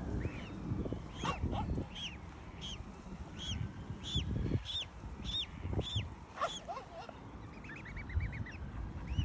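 Swan cygnets peeping: a string of short, high chirps about two a second, then a quick run of rapid peeps near the end, over a low rumble.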